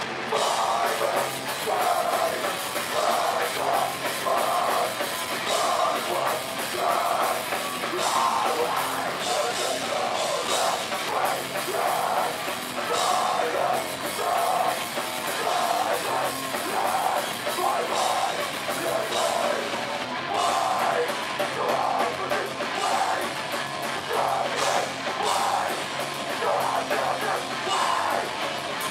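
Hardcore punk/metalcore band playing live: distorted electric guitar and bass over a drum kit with heavy cymbal hits, and a vocalist singing into a microphone, loud and continuous.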